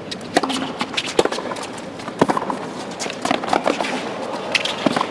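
A tennis rally on a hard court: racket strings striking the ball and the ball bouncing, giving sharp pops roughly a second apart, with players' footwork scuffing in between.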